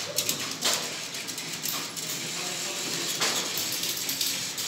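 Plarail battery-powered toy train running around its plastic track: a mechanical clatter of clicks and rattles from the motor, gears and wheels, with sharp clicks every second or so.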